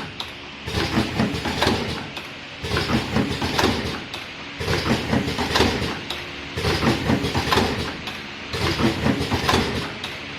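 Automatic vertical cartoning machine running, its mechanism clattering in a repeating cycle of about one burst every two seconds as it forms and fills paper boxes.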